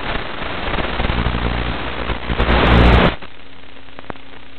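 Loud crackling static with a low buzz from an analog FPV video link's audio channel, as the signal breaks up. It cuts off abruptly about three seconds in to a steady hiss with a faint hum, and there is a single click near the end.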